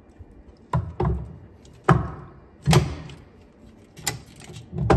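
A 1:24 die-cast alloy tractor-truck model being handled: its tilting cab swung back down and pressed shut, giving a series of about six sharp metallic knocks and clicks roughly a second apart.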